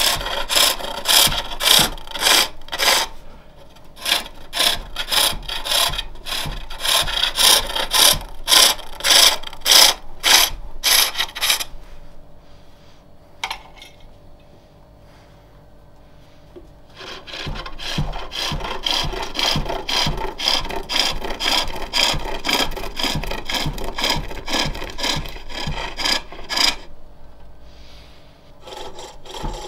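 Turning tool cutting a Jacaranda plate spinning on a spring-pole lathe: a rapid rhythm of scraping cutting strokes as the treadle drives the work back and forth. The cutting stops for several seconds around the middle, then resumes as a more even scraping.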